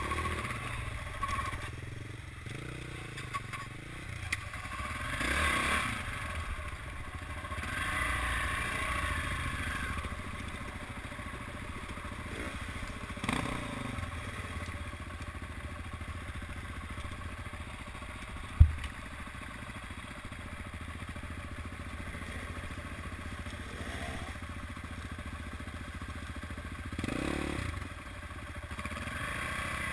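Dirt bike engines running at low revs over rough trail, the revs rising and falling in several brief throttle blips. One sharp knock about two-thirds of the way through.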